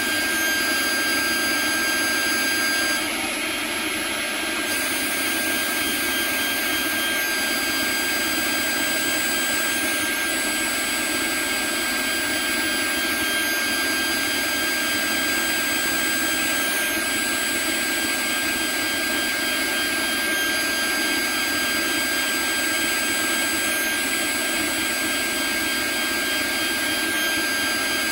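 CNC router spindle running with a steady high whine while its end mill cuts Delrin plastic, the cutting noise continuous under the whine. The strongest whine tone stops about three seconds in, and the level dips slightly for a moment.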